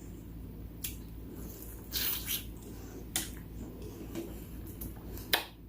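Close-miked eating sounds of a person chewing: a few short wet smacks and clicks of the mouth, spaced a second or so apart, over a low room hum.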